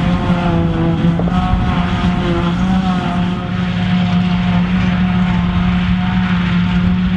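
New Holland T7 200 tractor engine working under load as it drives a JF 900 trailed forage harvester chopping grass and blowing it into a trailer, with a second tractor running alongside. A loud, steady machine drone.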